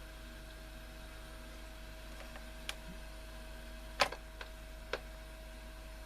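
A few small sharp clicks of handling on the workbench, the loudest about four seconds in, over a faint steady hum and hiss.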